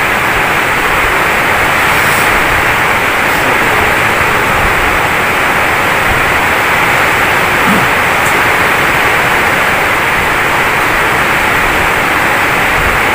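Loud, steady hiss like static that runs without a break.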